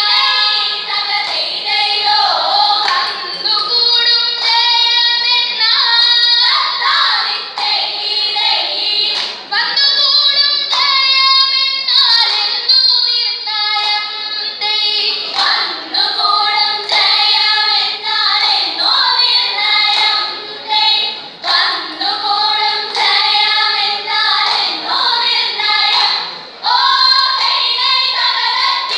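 A group of girls singing a Vanchipattu, a Kerala boat song, together in rhythmic sung phrases, with short sharp beats punctuating the song.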